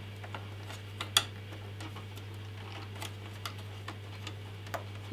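Scattered small clicks and taps of cables and plastic connectors being handled and pushed into place inside an open PC case, the sharpest about a second in.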